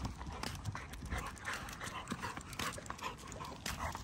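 American bully dogs trotting on leash along a concrete street, panting, with a steady patter of footsteps.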